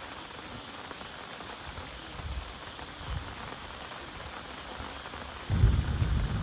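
Steady rain falling. About five and a half seconds in, a sudden loud low rumble starts and keeps going.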